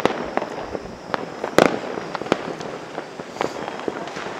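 Fireworks exploding: a run of scattered sharp bangs and crackling pops over a constant background of more fireworks, with the loudest bang about a second and a half in.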